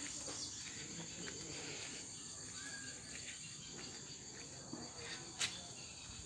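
Steady high-pitched chirring of insects, like crickets or cicadas in the garden vegetation, with one sharp click about five and a half seconds in.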